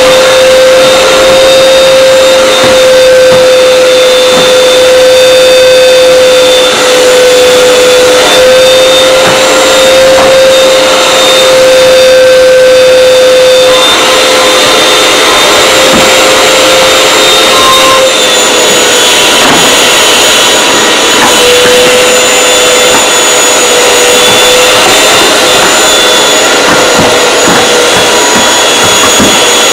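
Canister vacuum cleaner running loud and close, a steady motor whine that wavers slightly in pitch; the tone shifts a little about halfway through.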